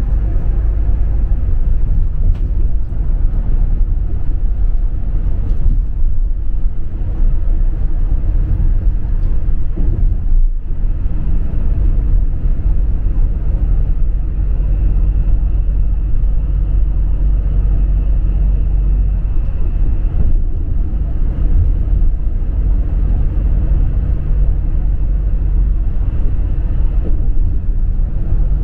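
Inside a city bus driving at speed: a steady low rumble of engine and road noise, heard from within the cabin, with a brief dip about ten seconds in.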